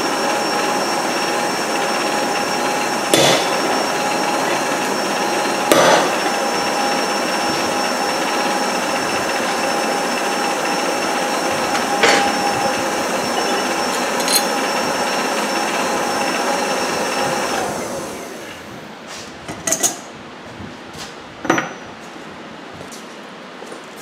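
A steady motor whir with a couple of held tones, cutting out about three-quarters of the way through. Over it, a few sharp clanks of a steel bar against the anvil and its hardy tool. After the whir stops, lighter metal clinks of tools being set down on the anvil.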